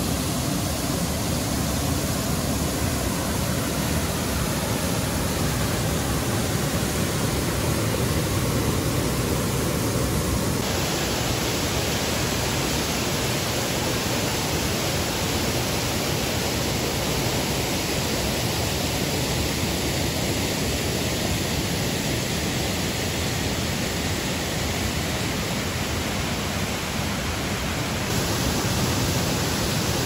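Waterfall on a small peat-brown river pouring into a pool: a steady, even rush of falling water, its tone brightening slightly about ten seconds in.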